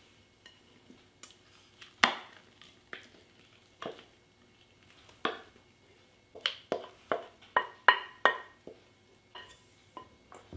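Wooden spoon scraping and knocking against a mixing bowl while thick batter is spooned out into a cast iron loaf pan: sharp knocks with a brief ring, a few scattered ones, then a quick run of about eight in the second half.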